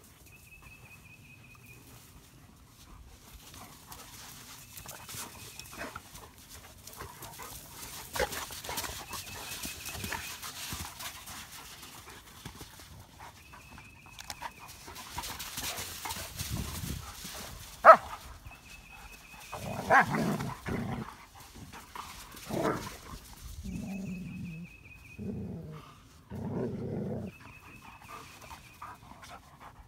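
Dogo Argentinos play-fighting in sand, scuffling and letting out a run of short barks and growly vocalisations in the second half. There is one sharp snap about halfway through.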